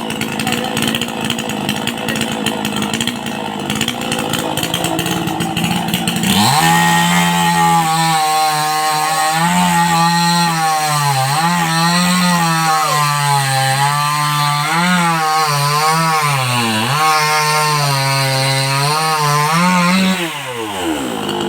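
Chainsaw idling, then revved up about six seconds in. It runs at full throttle for some fourteen seconds, its pitch repeatedly dipping and recovering as the chain bites into the wood. Near the end the throttle is released and it drops back to idle.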